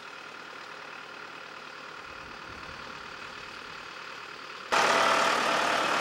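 Tractor engine running steadily, jumping suddenly louder about three-quarters of the way in.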